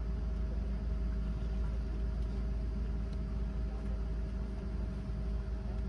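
Steady low hum inside a parked airliner's cabin, with two faint steady tones riding over the rumble.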